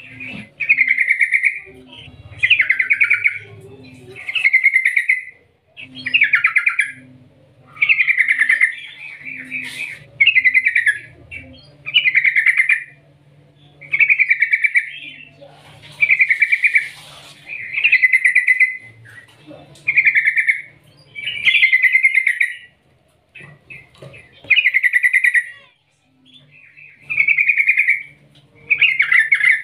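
Yellow-vented bulbul (trucukan) in full song, a loud bubbling phrase repeated over and over, about one every second or so.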